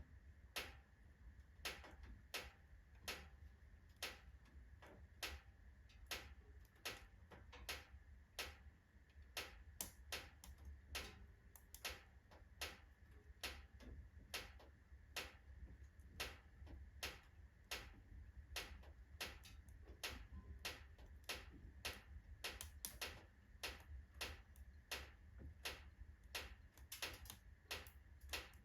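Oak logs burning in a fireplace, crackling with sharp, unevenly spaced pops, about two a second, over a faint low hum.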